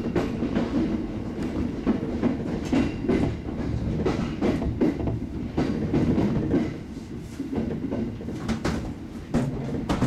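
JR East 701 series electric train running, heard from inside the car: a steady rumble with a run of sharp, irregular wheel clacks over rail joints and points.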